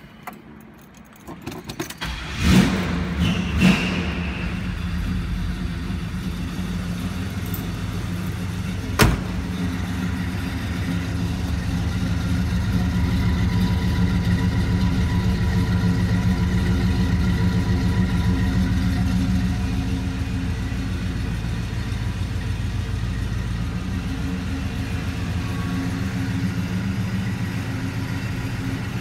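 1969 Chevrolet Chevelle's engine cranking and catching about two seconds in, then idling steadily through its exhaust. There is one sharp click about nine seconds in.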